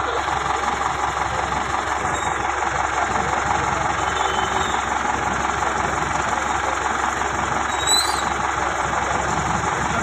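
Crane engine running steadily, with a brief high squeak about eight seconds in.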